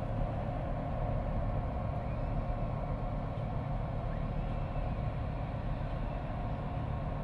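Steady low mechanical drone with a constant mid-pitched hum above it, unchanging throughout.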